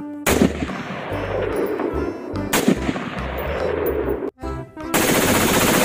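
M4-style rifle firing, three sudden shots about two and a half seconds apart, each trailing off in a long echo.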